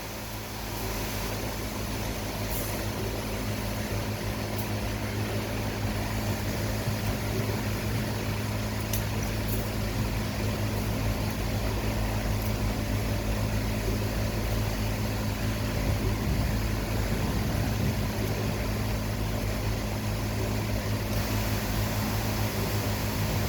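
Steady low machine hum over an even hiss, rising slightly over the first few seconds, with a few faint clicks.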